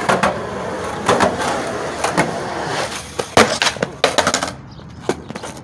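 Skateboard wheels rolling on concrete, then sharp clacks of the board as the skater flips it down a set of concrete stairs. The loudest clack, about three and a half seconds in, is followed by a quick clatter of smaller knocks.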